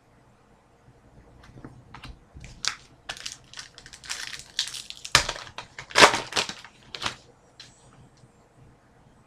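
Trading-card pack wrapper crinkling and crackling as it is handled and torn open, in irregular bursts that start about a second and a half in, are loudest about six seconds in, and die away near the end.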